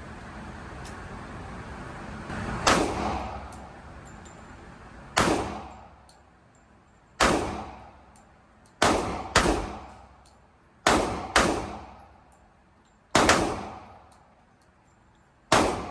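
Handgun shots at an indoor range: nine shots at uneven intervals, two of them in quick pairs about half a second apart, each ringing off the range walls as it fades.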